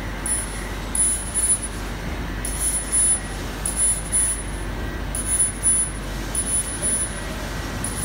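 Large gantry laser cutting machine running while cutting a plastic sheet: a steady machine hum and fan noise, with short high-pitched whines coming about once a second as the cutting head moves from cut to cut.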